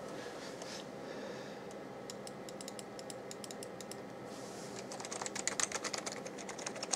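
Keys of an old 1993 Packard Bell computer keyboard clicking as they are pressed, a scattered run of clicks a couple of seconds in, then a faster, louder flurry near the end. No MIDI notes sound with them, because the player program's status still had to be changed.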